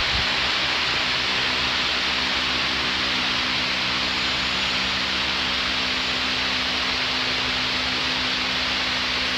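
Wall-mounted electric fan running: a steady rushing hiss with a faint low hum underneath.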